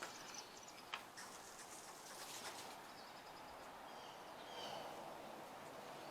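Faint outdoor background with distant birds chirping briefly about four seconds in, and two small clicks near the start.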